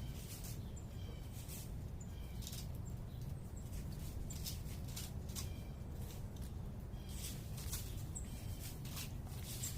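Small birds chirping and calling in short repeated notes over a steady low rumble of distant city background noise.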